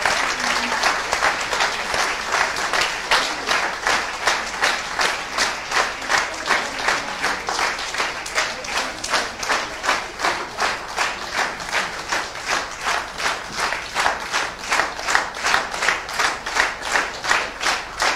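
Audience applauding. The scattered applause settles into rhythmic clapping in unison, about three claps a second, from about halfway through.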